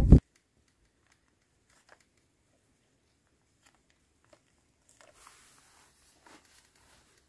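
Near silence with a few faint clicks, after a loud pitched call cuts off abruptly at the very start.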